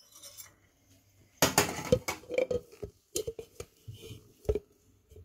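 Glassware and metal being handled: a scrape or rattle about a second and a half in, then a run of sharp clinks and clicks, with one louder knock near the end.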